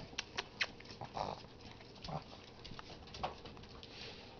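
Small dogs moving about on a hardwood floor: scattered light clicks and taps, several close together in the first second and a few more spread through the rest, fairly quiet.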